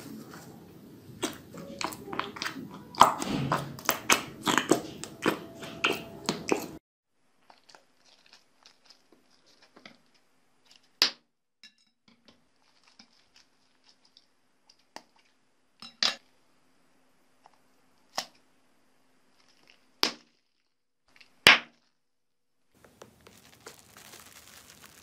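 Thick slime mixed with foam cubes stirred with a spoon, giving a dense run of sticky crackles and clicks that cuts off suddenly. Then a ball of blue slime squeezed by hand, with faint squishy ticks and about five sharp pops. Near the end, a soft rustling crunch as a hand presses pink foam in a plastic box.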